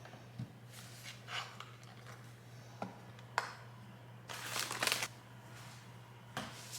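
Soft, intermittent rustling of cloth being handled, with a few brief sharper scrapes, the busiest stretch about two-thirds of the way through, over a faint steady low hum.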